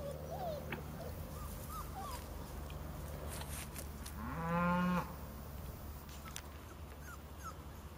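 A cow moos once, a single call of just under a second that is the loudest sound here, about halfway through. Faint high-pitched puppy whimpers come in the first two seconds.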